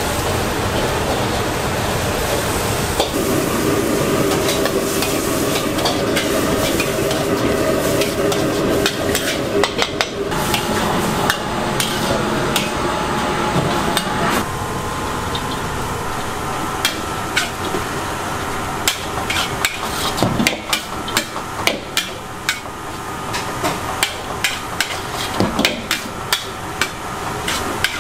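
Metal spatula scraping and clanking against a steel wok as rice noodles for pad thai are stir-fried, over a steady hiss of frying. The knocks come in quick runs in the second half.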